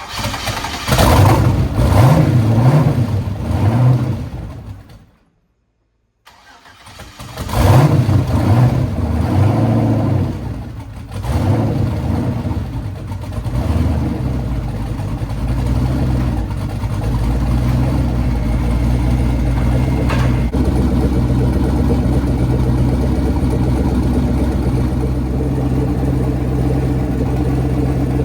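A freshly built turbocharged Ford Fairmont engine on its first start, running with no exhaust fitted so it is very loud: it is revved in uneven surges, the sound cuts out for about a second around five seconds in, then it revs again and settles into a steady idle.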